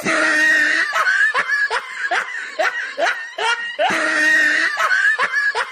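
High-pitched laughter in quick rising pulses, about three a second, starting abruptly. The same stretch recurs about four seconds in, as in a looped laugh sound effect.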